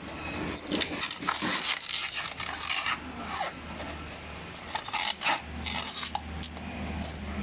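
Rack parts being handled and fitted during assembly: irregular rubbing and scraping with scattered sharp clicks.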